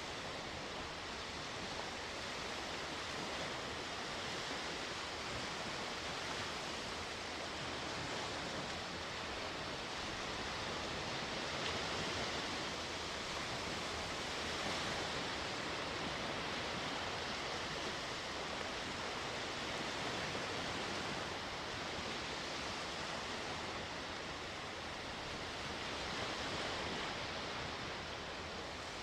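Sea waves washing on the shore, a steady wash of surf that swells and eases gently every few seconds.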